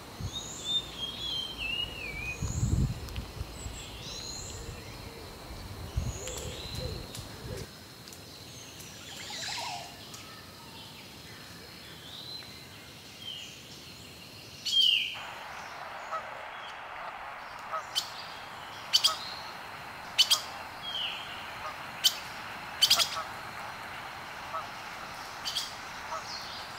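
Birds calling: short, high chirps that sweep downward, repeated about once a second. About halfway through the background turns to a steady hiss, and sharp clicks sound every second or so alongside the chirps.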